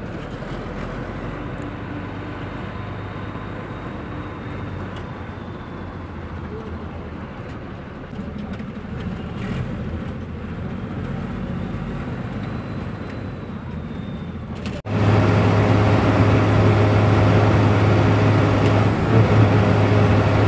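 Engine and road noise of a moving bus, heard from inside. About fifteen seconds in, the sound cuts abruptly to a much louder, steady engine drone.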